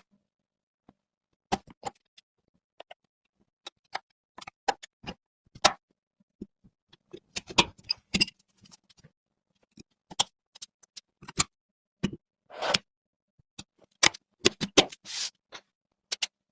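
Irregular clicks, taps and brief scrapes of computer parts being handled and fitted together during a PC build, with gaps of silence between them.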